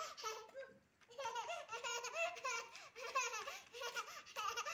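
A toddler laughing in repeated high-pitched bursts, with a short pause about a second in.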